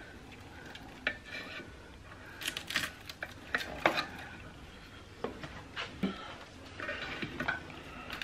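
Metal tongs scraping and clicking against an air fryer basket in scattered short strokes, prying loose chicken that is stuck to the basket.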